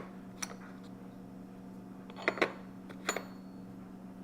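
Light metallic clicks and clinks of alloy-steel sockets and thread chasers being handled and set down: one near the start, then pairs around two and three seconds in, with a faint steady hum underneath.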